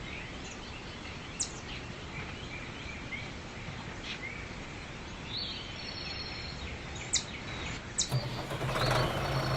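Outdoor background hiss with a few short, high bird chirps scattered through it. A low steady motor hum comes in near the end.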